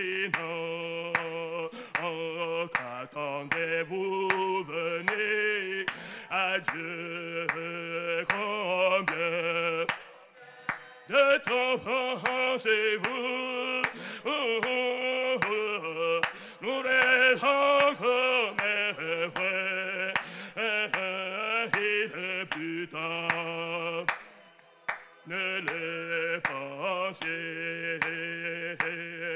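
Congregation singing a French hymn, led by a man's voice, with hand claps keeping time. The singing breaks off briefly twice, about ten seconds in and again near twenty-five seconds.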